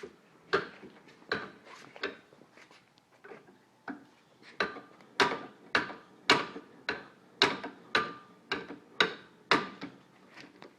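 Small bench vise being tightened by hand: a run of sharp metal clicks and clanks, some ringing briefly, irregular at about one to two a second and louder in the second half, as the vise handle or screw is worked without getting a proper grip.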